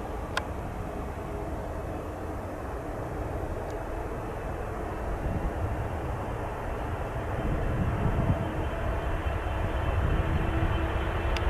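Boeing 777-300ER's GE90 jet engines on approach: a steady low rumble that slowly grows louder as the airliner nears, with one short sharp click about half a second in.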